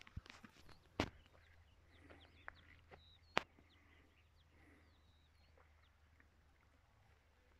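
Birds chirping: a run of short high chirps through the middle, with two sharp clicks about a second and three and a half seconds in, over a faint low hum.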